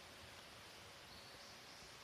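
Near silence: quiet outdoor ambience with a steady faint hiss, and a few faint high chirps about halfway in, like a distant bird.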